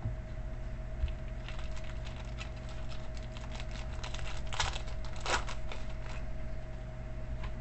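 Trading cards and their plastic wrapping and sleeves being handled: light rustling, crinkling and small clicks that come in bunches, the loudest about two-thirds of the way through, over a steady electrical hum.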